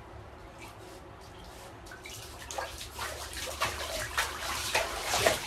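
Bath water sloshing and splashing as a Shiba Inu shifts its body in a filled bathtub, starting about two seconds in and growing louder.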